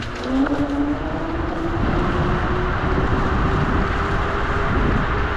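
TeeWing Mars XTR electric scooter under way: a steady motor whine that creeps slightly upward in pitch, over a constant rumble of wind on the microphone and tyre noise.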